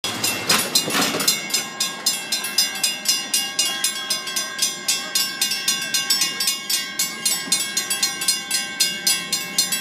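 Railroad grade-crossing warning bell ringing in rapid, even strikes, several a second, each leaving a steady ring, as the crossing gates come down for an approaching train.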